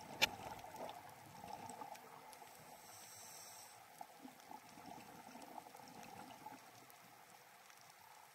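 Faint, muffled underwater ambience heard through a camera's waterproof housing: a steady wash of water noise with scattered small clicks and one sharper click just after the start, and a thin hiss for about a second a third of the way in.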